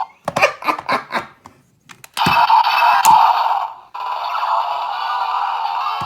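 DX Ryusoul Ken electronic toy sword with the Fue Soul inserted, playing its sound effects through its small speaker. A few plastic clicks come first, then a short burst of electronic effect sound about two seconds in, then a steady looping standby sound.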